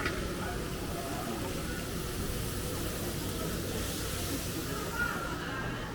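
Busy street-market ambience: a steady hiss of background noise with faint, indistinct voices and a brief click at the start.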